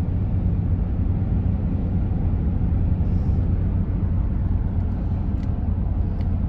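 Steady low road and engine rumble inside a moving car's cabin at highway speed.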